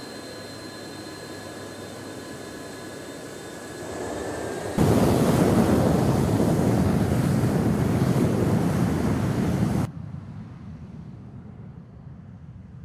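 Jet engines of a KC-10 Extender tanker: a steady whine with thin high tones over engine noise as it taxis. About five seconds in, this switches abruptly to much louder jet noise for about five seconds, then drops sharply to a faint low rumble.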